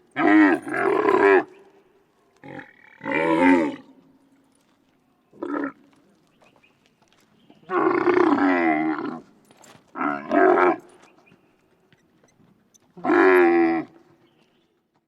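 Camel grunting loudly: a series of about seven rough, pitched calls, each up to about a second and a half long, separated by short pauses.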